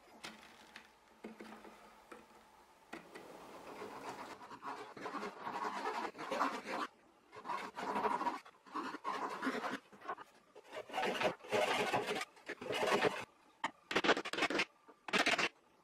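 Light scratching of an edge tool scoring oak, then a hand chisel paring oak in repeated scraping strokes that grow louder and more separate toward the end, about one stroke a second.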